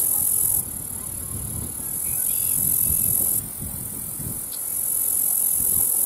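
Loud, high-pitched insect buzzing that cuts out and comes back every second or two, over a low rustle of wind on the microphone, with a few faint bird chirps.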